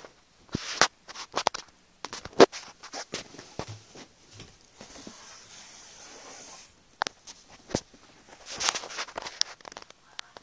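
Handling noise: a scattered series of sharp clicks, taps and scratches, with a steadier scratchy rustle for about two seconds in the middle.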